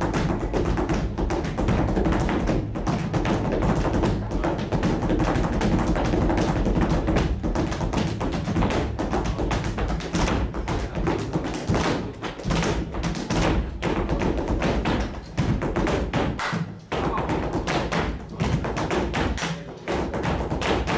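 Flamenco footwork (zapateado): rapid heel and toe strikes of a dancer's shoes on the stage, over flamenco guitar. The strikes come thick and fast, with a few short breaks in the second half.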